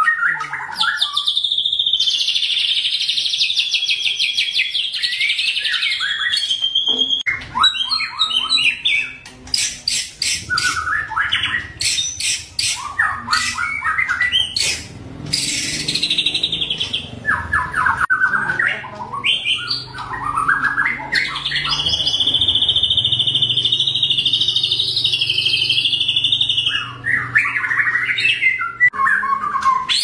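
White-rumped shama (murai batu) in full, non-stop song (gacor). Long, fast, high trills near the start and again past the middle alternate with quick runs of varied whistled and chirped phrases.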